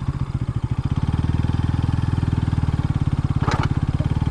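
Bajaj Pulsar NS200's single-cylinder engine ridden at low, steady revs, its firing pulses coming through as an even chug.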